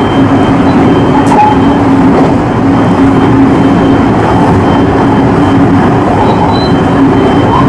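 Electric multiple-unit train running at steady speed, heard from inside the front car: a constant rumble of wheels and running gear with a steady hum under it.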